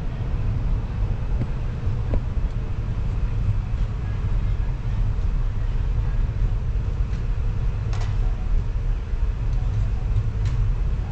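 Passenger express train running, a steady low rumble with a sharp click about eight seconds in.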